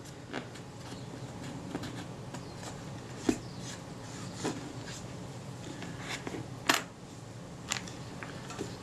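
Cotton bud scrubbing grit and old grease off an aluminium lens ring, heard as quiet scattered scratches and small clicks over a steady low hum.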